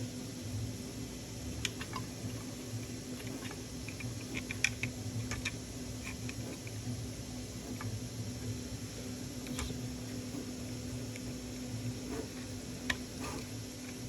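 Scattered small clicks and taps of hands handling a screwdriver, a small screw and plastic model parts, over a steady low hum.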